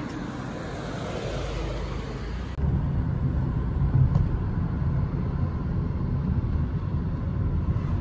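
Street ambience, then about two and a half seconds in a cut to the inside of a moving taxi: a steady low road and engine rumble in the cabin.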